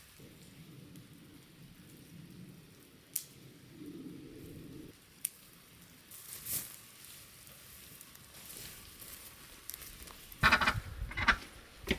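Faint rain patter with a few light clicks. About ten seconds in, ducks break into loud, repeated quacking.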